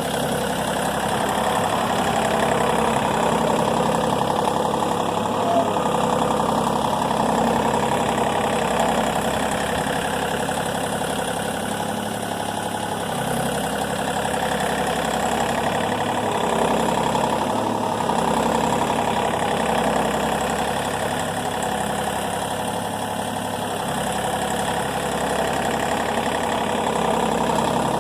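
A vehicle engine running steadily, its level rising and easing slowly.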